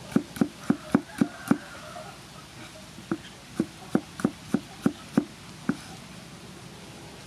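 Cleaver chopping pickled cucumber on a thick wooden chopping block: sharp knocks at about three to four a second, a pause of about a second and a half, then a second run of chops that stops shortly before the end.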